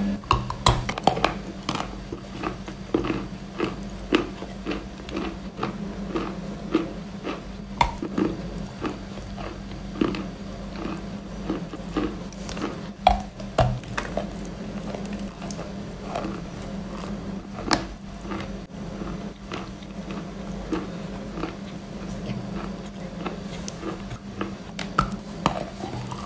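Close-miked chewing of a cream-filled cookie: a steady run of sharp wet clicks and crunches, about two a second, with lip smacks.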